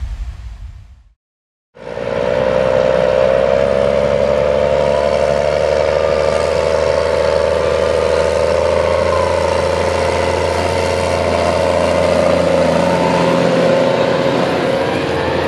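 Case IH Puma tractor's diesel engine running steadily while it pulls a grain trailer across stubble. It starts about two seconds in, after the preceding sound fades briefly to silence.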